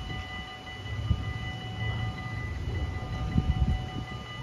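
Level-crossing bells ringing steadily at an automatic half-barrier crossing, with the low rumble of a train underneath that comes in about a second in, fades, and returns near the end.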